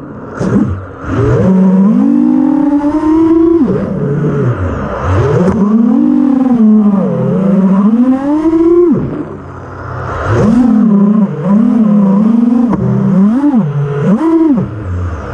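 FPV racing quadcopter's brushless motors (BrotherHobby R5 2450kv spinning Gemfan Flash 5149 props) whining, the pitch rising and falling constantly with the throttle. The pitch drops sharply twice as the throttle is cut, and there are several quick punches near the end.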